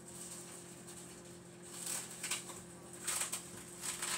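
Plastic wrapping crinkling and rustling as it is pulled off and handled, in a few short bursts, the loudest about three seconds in, over a faint steady hum.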